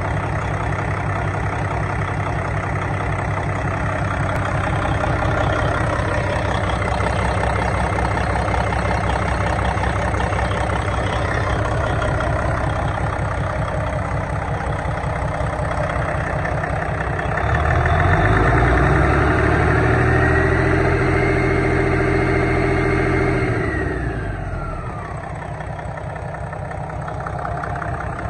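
A 2011 PACCAR MX13 12.9-litre inline-six diesel engine, out of the truck and test-run on a stand, idles steadily. A little past halfway it is revved up, held at the higher speed for about six seconds, then let fall back to idle.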